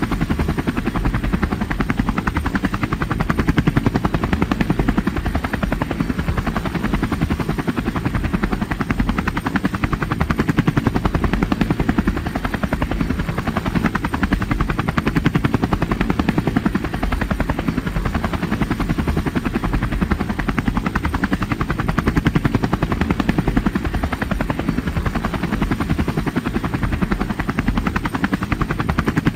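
Steady, rapid rotor chop of a flying rotorcraft, running at an even level throughout.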